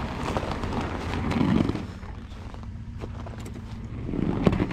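Third-generation Toyota 4Runner's engine idling with a steady low rumble, with scattered sharp clicks and crunches over it and a louder clatter near the end.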